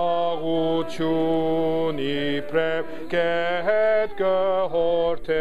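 A man's voice sounding out a hymn melody without words, in a string of long held notes that step up and down, to set the starting pitch before the hymn is sung.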